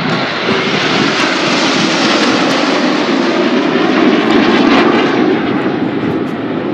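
Red Arrows BAE Hawk T1 jets in close formation passing the crowd, the rush of their Adour turbofan engines swelling to its loudest about four seconds in and easing off near the end.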